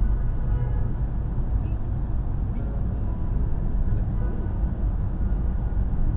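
Steady low road and engine rumble of a 2014 Honda Accord, heard inside its cabin while it drives, with faint steady tones in the background.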